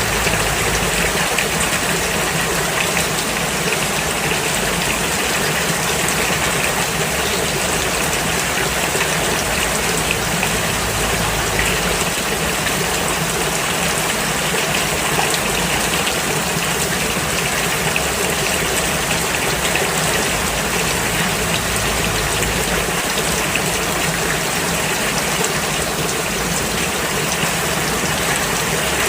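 Steady rain, falling evenly and without pause.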